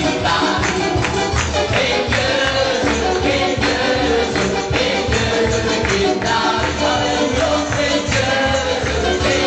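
A church praise band plays a worship song through a PA. Men and a woman sing into microphones over electric guitar and keyboard, with percussion keeping a steady beat. The recording is made on a mobile phone.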